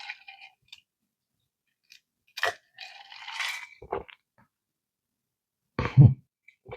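Sipping and swallowing a gin and tonic served over ice: a few short, separate mouth and glass sounds with quiet gaps between them, and a duller, lower sound near the end.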